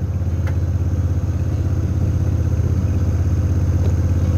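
An engine idling: a steady low drone with rapid, even firing pulses, slowly getting a little louder.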